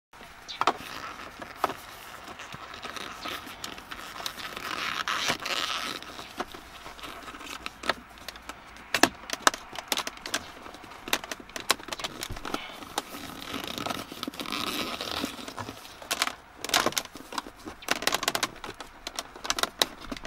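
Plastic selector-lever trim frame of an Audi A6 4F being worked into the centre console by hand: rubbing and scraping with scattered sharp clicks, as the frame is pressed and clipped in. The clicks come thicker near the end.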